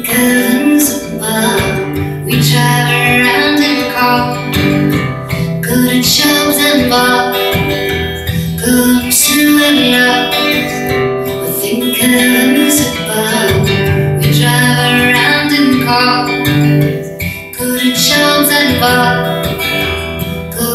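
Acoustic guitar strummed and picked, playing a song's closing section, with a woman singing along at times.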